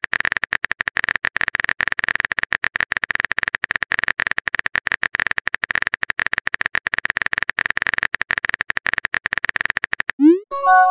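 Rapid, even clicking of a keyboard-typing sound effect with a high ring to each click. Near the end it stops and is followed by a short rising blip and a brief chime, a message-sent alert.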